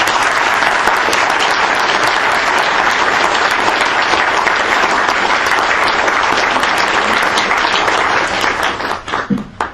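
An audience applauding: many hands clapping in a dense, steady patter that thins out near the end and stops.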